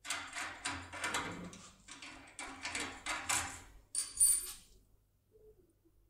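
Small metal hand tools and a key being handled at a lock cylinder: a run of scraping, rattling handling noises, ending about four seconds in with a bright, ringing metal clink.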